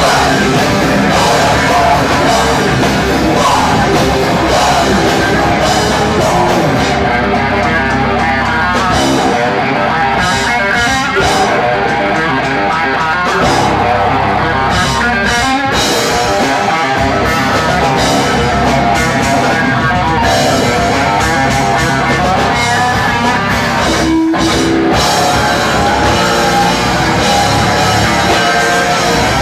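Live rock band playing loud: electric guitar, bass and drum kit, with a singer on the microphone.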